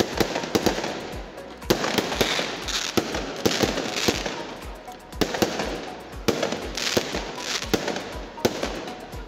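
Fireworks display: aerial shells bursting one after another, many sharp bangs in quick succession at an uneven pace, with a rushing hiss between them.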